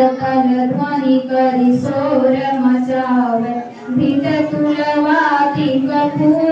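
Children singing a slow devotional hymn to the goddess Saraswati together, with long held notes and a short pause about four seconds in.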